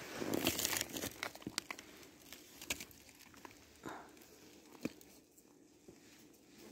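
Crinkling, rustling and light scraping as a frosted clear cover is lifted off the top of a beehive, then a few light clicks and knocks.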